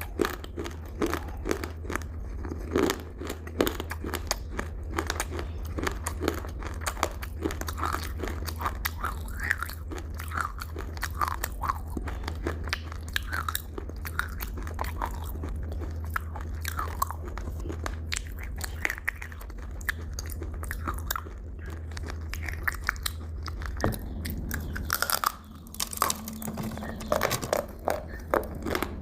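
Close-miked chewing and biting of crunchy food: dense, rapid crunching crackles throughout, over a steady low hum.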